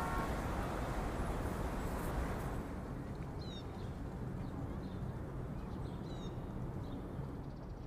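Outdoor background ambience: a steady low rumble with small birds giving several short, high chirps from about three seconds in. The last of a music cue dies away at the very start.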